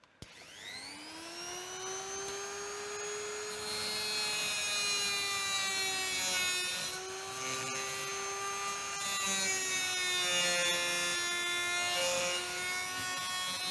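Handheld rotary tool (Dremel-type) switched on and spinning up with a rising whine. It then runs steadily while its carbide ball-nose burr grinds away a broken high-speed-steel tap lodged in a hole in steel, with a grinding hiss over the motor. The whine dips in pitch briefly a few times as the burr bites.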